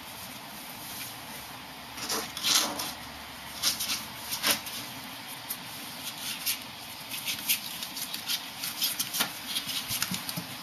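Ferrets and a kitten scrabbling on cardboard and a wooden floor: irregular scratchy rustles and claw clicks, starting about two seconds in and loudest at about two and a half and four and a half seconds.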